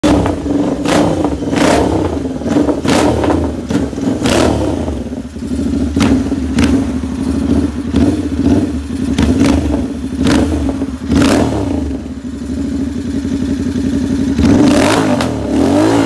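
Royal Enfield Continental GT 650's parallel-twin engine running, with sharp throttle blips roughly once a second over a steady note, then revved up in a rising sweep near the end.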